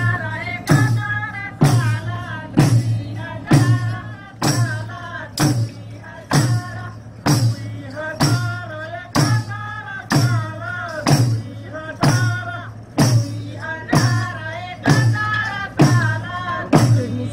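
Folk dance music: voices singing a repeating melody over hand drums struck in a steady beat, about one stroke a second.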